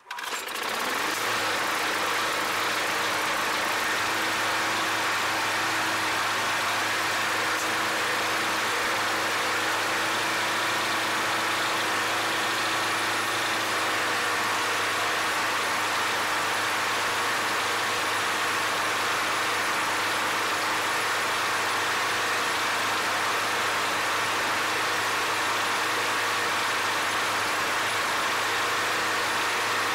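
Briggs & Stratton single-cylinder lawn mower engine running at a steady speed. The engine is working as a makeshift air compressor, its compression fed through a check valve in the head to fill a car tire.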